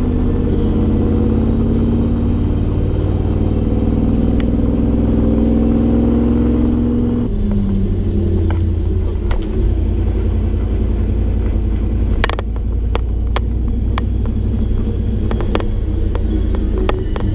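Chevy C30 rollback truck under way with its swapped-in 8.1-litre Vortec 8100 V8 running. The engine note climbs for about seven seconds, then drops sharply and settles lower. Scattered sharp clicks and rattles follow.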